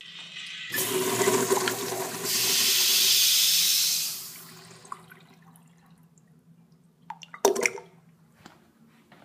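A Crane restroom fixture flushing: a rush of water starts about a second in, swells into a strong hiss, and fades after about four seconds into a faint trickle. A few sharp knocks follow about seven and a half seconds in.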